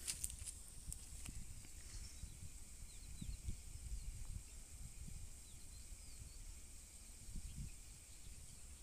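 Faint background: a steady high hiss with a few faint short chirps and irregular low bumps and rumble.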